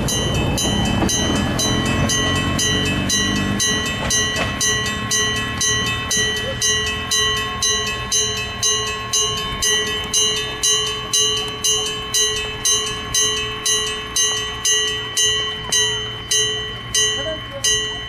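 Gong-type railway level-crossing warning bell (Daido Signal CA57) striking about twice a second with a sustained metallic ring, stopping at the very end. Over the first few seconds a passing railcar's rumble on the rails fades out under it.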